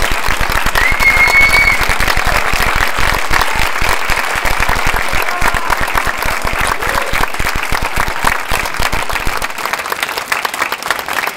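Audience applauding, with one high call rising above the clapping about a second in; the applause thins and fades over the last couple of seconds.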